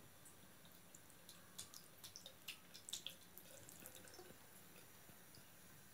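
Faint trickle of a thin stream from a bathroom sink tap into the basin, with a quick run of small splashes and drips about one to three seconds in as a kitten plays in the stream.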